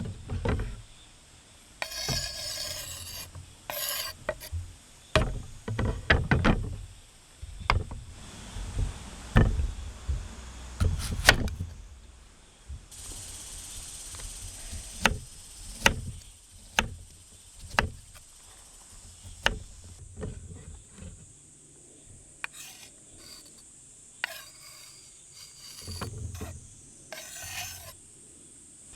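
Irregular scraping and rubbing sounds, broken by a series of sharp knocks and clicks.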